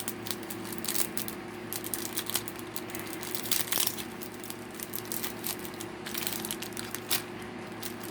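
Plastic packaging of a packet of doll hair crinkling and crackling in irregular bursts as it is handled and opened one-handed, over a faint steady hum.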